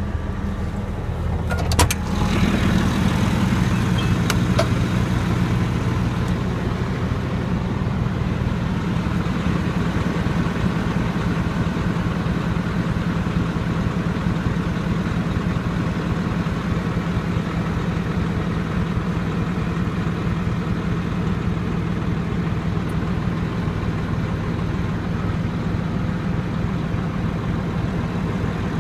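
Caterpillar D6T bulldozer's diesel engine running steadily. About two seconds in there is a sharp click and the engine gets louder, then holds steady.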